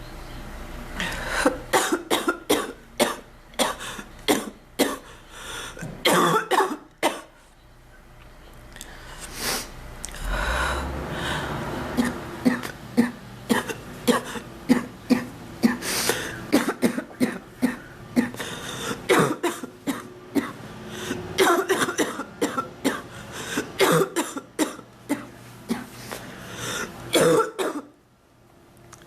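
A woman coughing in repeated fits, each a run of several quick coughs with short pauses between. It is the persistent cough of someone who is ill.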